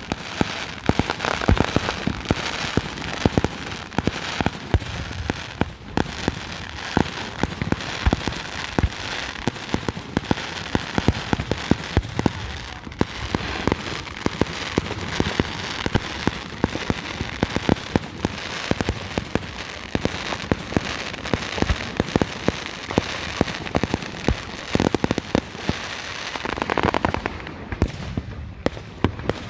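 Fireworks going off continuously: a dense run of sharp pops and bangs, several a second, over a steady crackling hiss.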